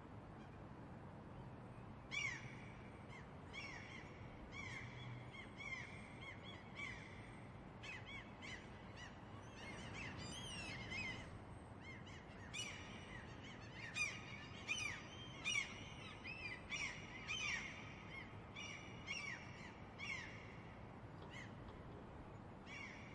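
Seagulls calling over and over, a run of short calls with a rising-and-falling pitch, overlapping most thickly in the second half, above a steady background hiss.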